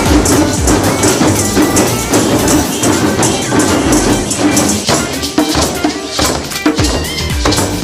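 Percussion-led music with a steady, driving beat and a prominent tambourine jingling throughout.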